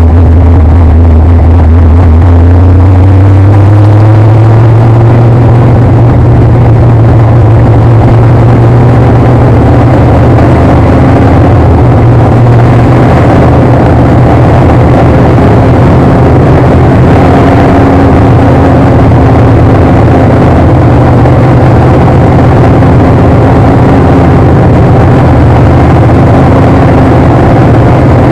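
Street stock race car's engine heard from inside the car, very loud and steady; its pitch climbs about three seconds in as the car picks up speed, then holds fairly even.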